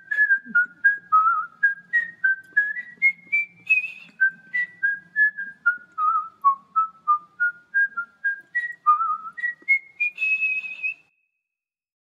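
A person whistling a tune: a string of short, clear notes, about three a second, wandering up and down. It ends on a longer held high note near the end.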